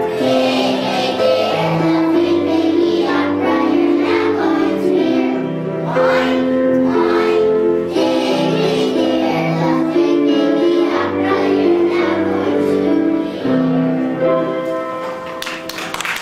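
A group of young children singing a song in chorus over a steady instrumental accompaniment. About fifteen seconds in the song ends and clapping begins.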